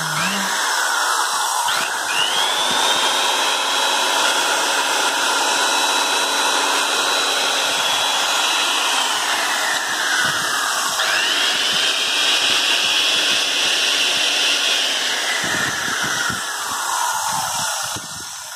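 Vintage Hitachi belt sander (about 1964, cast-aluminium housing, 100 V) running with a steady high motor whine. Its pitch sinks and climbs back around the middle, and the motor winds down near the end.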